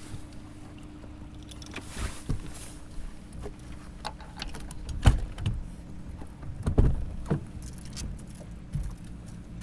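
Steady low hum of a boat's motor, with scattered clicks and knocks of gear being handled aboard; the loudest knocks come about five and seven seconds in.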